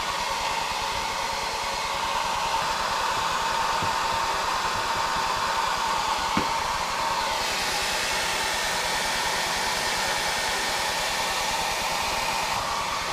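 Hair dryer running on high: a steady blowing hiss with a hum, used to soften the adhesive under a stuck camera base plate. The sound turns brighter and hissier about seven seconds in, then duller again near the end.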